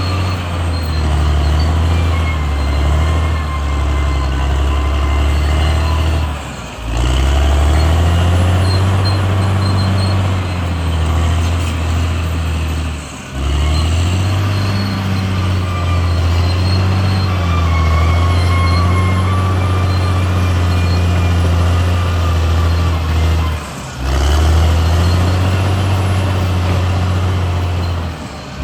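CAT D6R XL bulldozer's diesel engine working under load. It drops off briefly and climbs back up four times, about every five to ten seconds, and a faint high squeal comes and goes over it.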